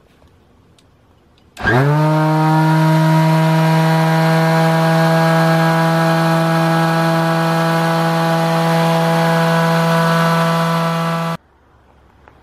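Electric vibrator shaking a wooden sand flask to pack play sand around a foam casting pattern. Its motor spins up quickly about a second and a half in, runs with a loud steady hum, and cuts off suddenly near the end.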